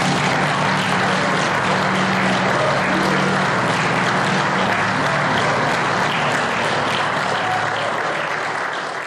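Audience applauding loudly after a live band's song, a dense crackle of many hands clapping. Low sustained notes from the band linger under the clapping for the first couple of seconds, and everything fades out near the end.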